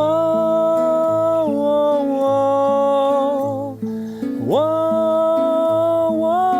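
Song with acoustic guitar strumming under a wordless sung vocal holding two long notes; the first wavers near its end, and the second slides up into pitch about four and a half seconds in.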